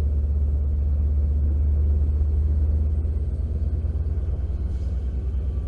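Passenger train's diesel locomotive pulling away along the track with a steady low rumble.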